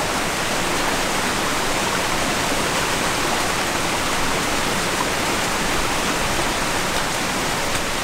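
Steady, even rush of running water.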